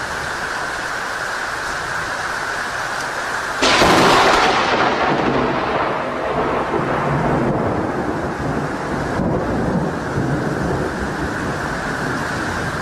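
Steady noise of a rainstorm, with a thunderclap about four seconds in that rumbles away over the next several seconds.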